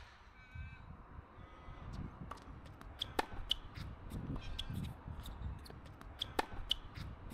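A crow cawing on and off, with scattered sharp clicks and taps.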